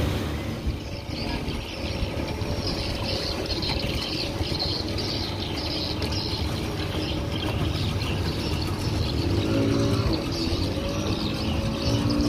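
Wooden speedboat's twin 200 hp engines running at low speed as the boat closes in on the dock: a steady low rumble with water churning, and a pitched hum coming up near the end.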